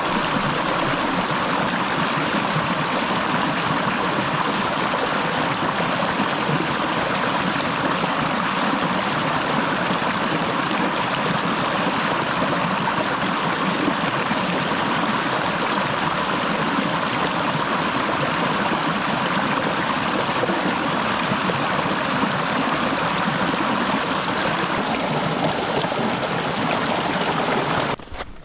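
Fast-flowing stream rushing steadily and loudly, an even hiss of moving water; the sound dulls slightly near the end.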